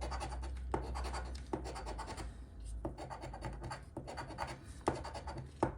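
Scraping the latex coating off a $5 Cash Explosion 25X scratch-off lottery ticket, in quick back-and-forth strokes with a brief pause about two and a half seconds in.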